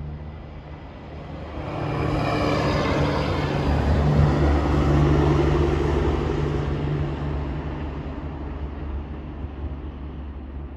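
Coal truck passing on the road: its diesel engine and tyre noise swell up about two seconds in, are loudest around the middle, then fade away, over a steady low hum.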